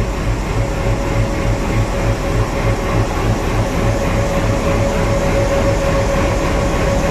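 WDM3A diesel-electric locomotive's ALCO V16 engine running at low power as the locomotive creeps in to couple, a steady low pulsing beat of about three a second under a constant hum.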